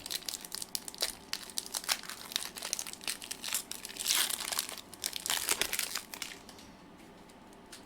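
Foil wrapper of a Pokémon trading-card booster pack crinkling as it is handled and opened, in a dense run of crackles that dies away about six seconds in.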